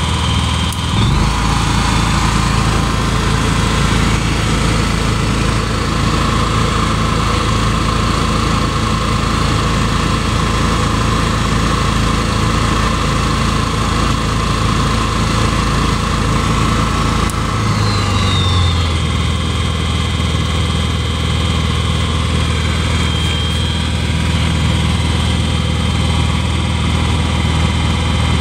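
Honda EU7000is inverter generator's fuel-injected single-cylinder engine running steadily with no load, on its first start-up and break-in run. The engine note shifts about a second in and again around 18 seconds in.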